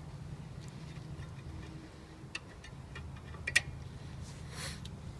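Light metallic clicks and taps of brake pads being fitted into a disc brake caliper, the sharpest about three and a half seconds in, with a brief scrape near the end.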